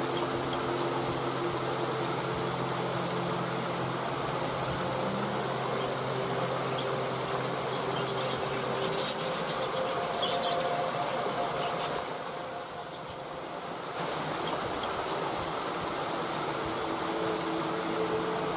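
Steady rush of falling water from a waterfall, with a steady low hum underneath.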